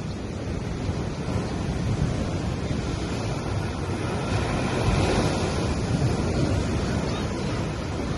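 Gentle sea waves washing onto a beach, a swell of surf building about halfway through, with wind rumbling on the microphone.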